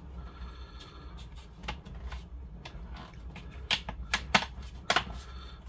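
Plastic screen bezel of an Acer Chromebook being pressed into place around the edge: a run of sharp clicks as its clips snap in, the loudest about four to five seconds in.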